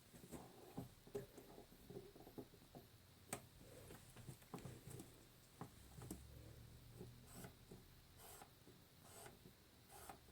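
Faint, irregular clicks and light taps of small faucet parts being handled and fitted, with one sharper click about three seconds in.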